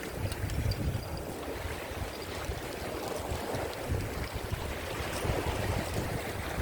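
Strong wind buffeting the microphone in gusts, over the wash of rough sea surf breaking on the rocks.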